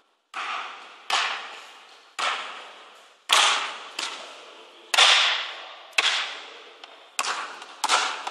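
Basketball dribbled on a wooden gym floor: sharp bounces about once a second, each ringing out in a long echo. The bounces come quicker near the end.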